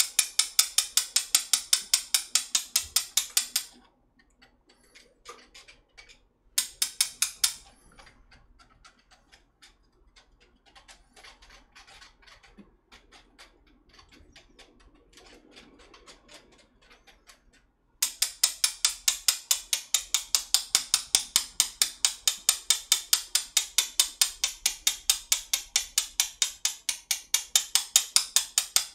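Wooden chopsticks stirring beaten egg through a metal mesh sieve, clicking rapidly against the wire at about five strokes a second. In the middle stretch the stirring drops to quieter, irregular scraping, then the fast clicking resumes about 18 seconds in.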